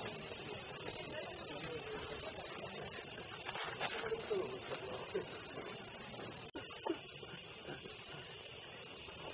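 Dense chorus of cicadas in the trees: a steady, high-pitched drone that never lets up, with faint voices murmuring beneath it. The sound breaks off for an instant about six and a half seconds in, then resumes.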